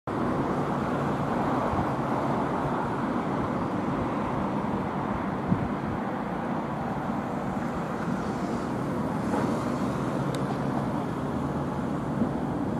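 Diesel engines of a Hitachi ZX135US hydraulic excavator and an EG70R crawler carrier dump running steadily while the excavator works its boom and bucket to load river sediment into the carrier, with one brief knock about five and a half seconds in.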